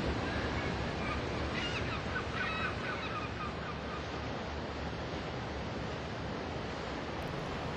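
Steady wash of sea surf, with some wind on the microphone; a few faint high calls come through between about one and a half and three seconds in.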